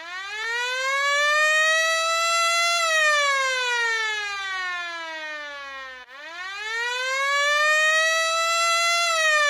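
Air raid siren wailing in a slow rise and fall: the pitch climbs for about three seconds, then sinks for about three. The cycle starts over abruptly about six seconds in and repeats.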